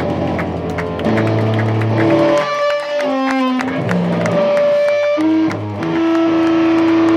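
Live rock band playing: electric guitar chords ringing over bass and drums. About two and a half seconds in, the bass drops out for a couple of seconds, leaving the guitar ringing, before the full band comes back in.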